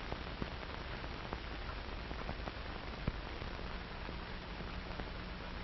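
Surface noise of an old 1950s film soundtrack: steady hiss with scattered clicks and pops and a low hum underneath.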